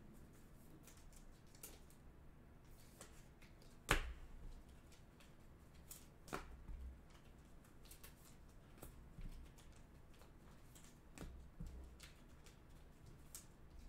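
Faint scattered clicks and taps of football trading cards being handled, flipped through and stacked by hand, with a sharper tap about four seconds in.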